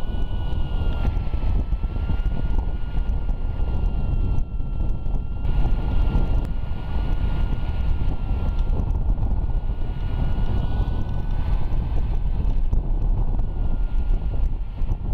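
Airflow rushing over the microphone of a paraglider in flight, a dense low rumble, with a steady high tone that wavers slightly in pitch.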